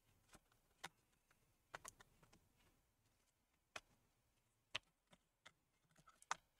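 Faint, sharp clicks and taps of small laptop parts being handled, about ten at irregular intervals, the loudest near the end.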